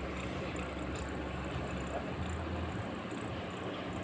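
Steady background hum and hiss, with a low drone that drops away about two seconds in.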